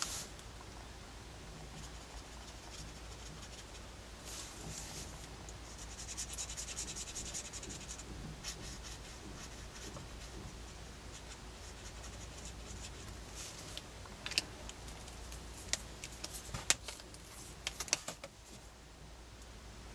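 Marker tip scratching and rubbing on sketchbook paper as a drawing is coloured in, soft and steady, with a handful of short sharp clicks near the end.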